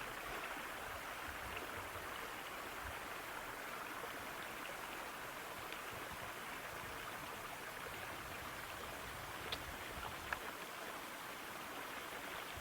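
Steady rush of running water from a small mountain stream or runoff, with two faint clicks late on.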